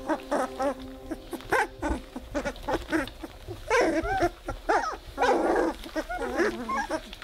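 19-day-old Weimaraner puppies whimpering and squeaking: many short, high whines that rise and fall, with a rougher grumbling call about five seconds in.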